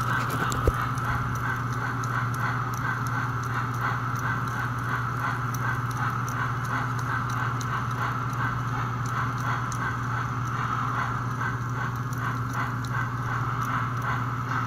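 Toy steam locomotive running on a test stand with its sound board giving a steady, rhythmic steam chuff synchronized with the drivers, over the hum and whir of its electric motor and gear drive. A single sharp click about a second in.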